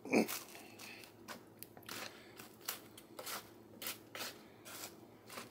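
A silicone spatula stirring rehydrating freeze-dried chili in a saucepan: irregular scraping strokes, about two a second, with a louder knock just at the start.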